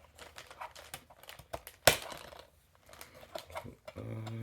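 Small clicks and taps of a tablet case being opened and handled, with one sharp snap about two seconds in.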